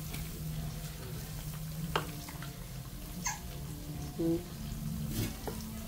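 Wooden spoon stirring meat stew in an aluminium pot, knocking sharply against the pot about three times, over a steady low hum.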